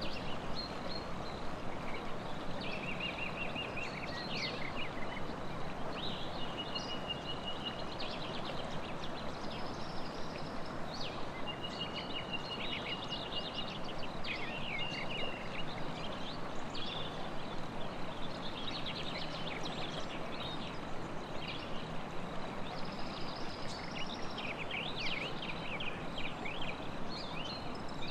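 Songbirds chirping and trilling now and then over the steady rush of flowing river water.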